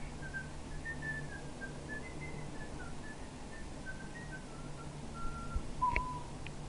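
Dry-erase marker squeaking on a whiteboard as numbers are written: a string of short high squeaks, then a tap and a lower squeak near the end.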